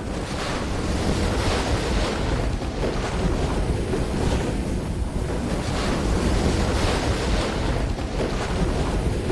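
Strong wind blowing across the microphone during a snowstorm, a steady rushing roar.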